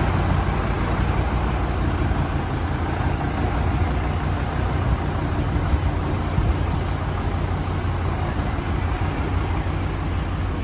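A large engine running steadily at an even speed, a continuous low hum with no changes in pitch.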